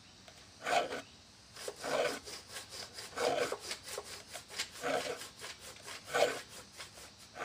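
Hand file rasping across the teeth of a dull wood handsaw in slow, even strokes, about one every second and a quarter, sharpening the teeth one by one.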